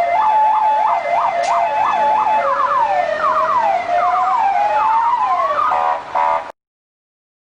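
Argentine police car electronic siren cycling through its tones: a fast up-and-down yelp, then quick falling chirps over a slow rising wail, then a rapid stuttering tone. It cuts off suddenly about six and a half seconds in.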